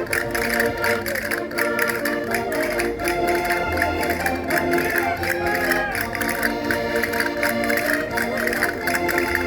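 Concertinas playing a folk dance tune: held reed chords under a moving melody.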